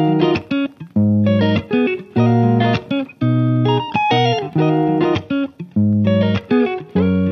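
Background music: repeated chords with a bass line, played in short phrases with brief gaps between them.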